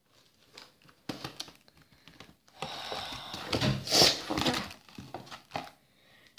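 Cardboard candy box being opened and handled: scattered rustles, scrapes and light taps, busiest around the middle.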